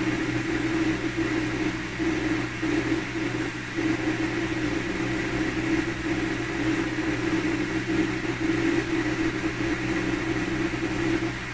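A steady mechanical hum with a low drone, running evenly throughout.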